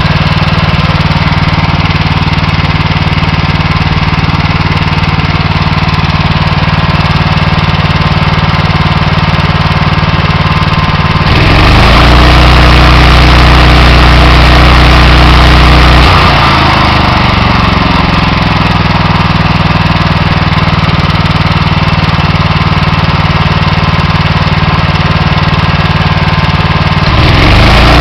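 Honda GX390 single-cylinder engine on a pressure washer running at a steady slow idle. About 11 seconds in it speeds up and grows louder, with a hiss added, for about five seconds. It then winds back down to idle and speeds up again near the end.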